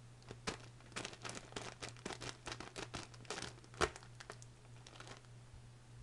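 The plastic wrapper of an instant ramen packet crinkling as a hand squeezes the packet, crushing the dry noodle block inside, in a quick run of crackles. The loudest crackle comes about four seconds in, and the crackles stop about five seconds in.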